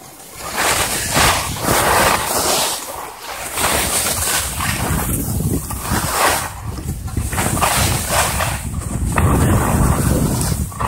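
Wind rushing over the microphone and skis hissing and scraping over packed snow during a downhill run. The hiss swells and fades in waves about once a second, over a low wind rumble that grows stronger near the end.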